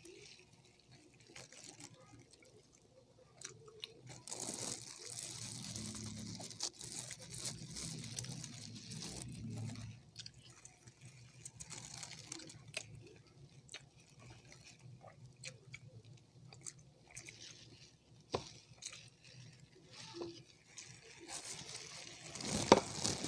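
Close-up eating sounds: chewing and wet mouth noises as chicken wings are eaten, with scattered small clicks and taps, denser for a few seconds near the start and a sharp, louder sound near the end.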